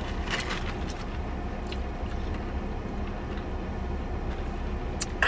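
Steady low rumble of a car idling, heard inside the cabin, with a few faint clicks.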